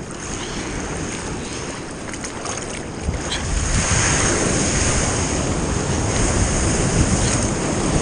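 Ocean surf and water sloshing around a camera held at the water's surface, growing louder about three seconds in as a wave breaks close by.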